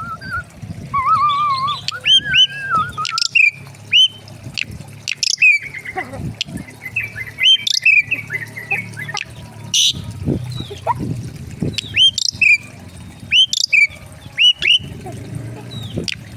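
Several aviary birds calling: warbling whistles in the first few seconds, then many short, sharp chirps and squawks repeating throughout, mixed with a few sudden clicks.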